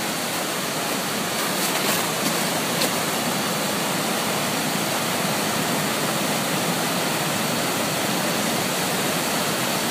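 Water rushing steadily through freshly opened dam floodgates and spilling down the spillway, released to lower the pond level.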